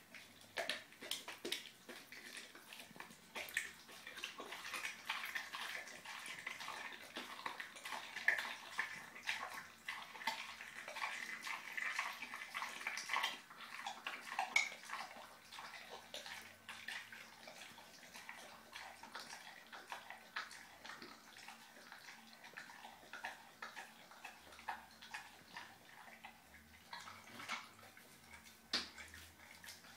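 Bullmastiff–English bull terrier puppy chewing and gnawing a raw mackerel: wet smacking and a quick, irregular run of small clicks. The chewing is busiest in the first half, then sparser, with a few sharper clicks near the end.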